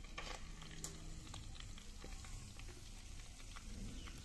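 Faint, scattered light clicks and taps as steel tongs set pieces of fried fish down on paper napkins in a basket.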